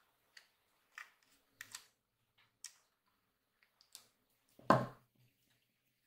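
Small scattered clicks and ticks of a hand screwdriver and metal screws as the screws are taken out of a 2.5-inch hard drive's mounting basket, with one louder knock about three-quarters of the way through.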